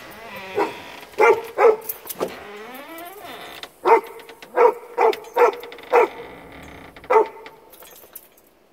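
Irish Setter barking: about ten short single barks at irregular spacing, with a quieter stretch after the last one near the end.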